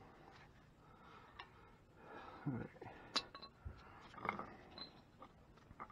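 A few faint metal clicks and clinks, the sharpest about three seconds in, as a bolt and nut are worked by hand at the lower mount of a truck shock absorber while trying to get the bolt started.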